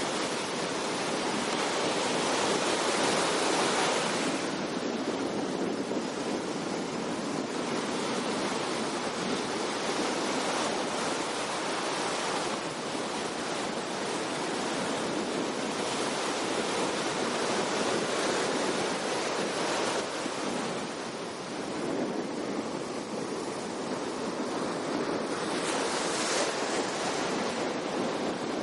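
Ocean surf breaking and washing up a sandy beach: a steady rushing wash that swells and eases a few times.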